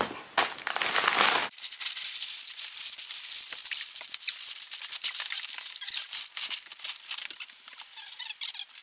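Thick plastic wrapping crinkling and rustling as hands pull it off a vacuum-packed mattress. A few handling noises come first, then a dense, steady crackle starts about a second and a half in.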